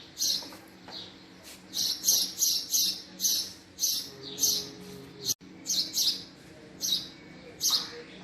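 Male house sparrow chirping: a run of short, high chirps repeated a couple of times a second, in bunches with brief pauses between.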